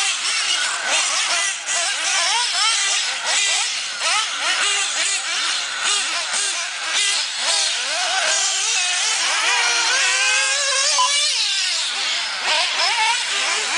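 Several 1/8-scale RC off-road buggies racing together, their small high-pitched engines revving up and falling off in overlapping, rising and falling whines as they accelerate and brake around the track.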